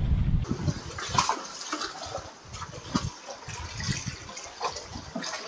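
Seawater sloshing and splashing irregularly among concrete tetrapods, with wind buffeting the microphone for the first half-second.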